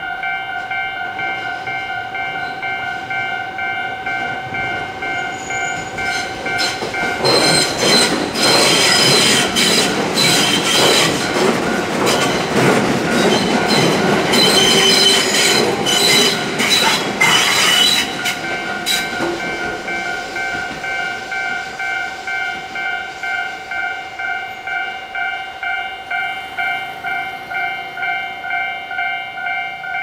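Japanese level-crossing alarm bell ringing steadily in quick electronic dings while a Tobu commuter train passes the crossing. The train swells in about seven seconds in, its wheels knocking repeatedly, drowns the bell until about eighteen seconds, then fades and leaves the bell ringing on its own.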